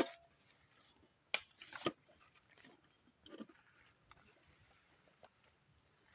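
Insects chirping in a steady, high, even drone, with a few short light knocks of things being handled, the loudest two close together about one and a half to two seconds in.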